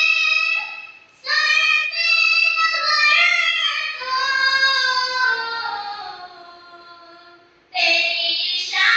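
A young girl singing a naat, a devotional Islamic song, unaccompanied, in long held melodic phrases with short breaks between them; one phrase slides down and fades before the next begins near the end.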